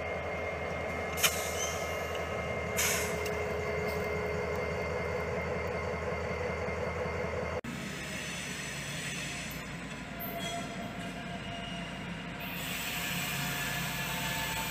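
Diesel-electric locomotives running: first a Norfolk Southern road locomotive's engine with a steady low throb and two short clicks, then, after a cut about halfway through, a Cincinnati Eastern locomotive pulling its freight train, with a high hiss of wheel noise rising near the end.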